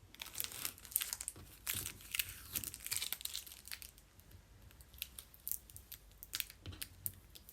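Adhesive tape being peeled off a surface, a crackling, tearing rip. It is dense for about the first half, then thins to scattered crackles and clicks.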